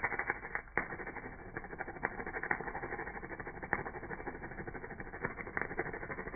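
Stick (shielded metal arc) welding: the arc strikes suddenly and then crackles and sputters steadily, with sharp pops every second or so.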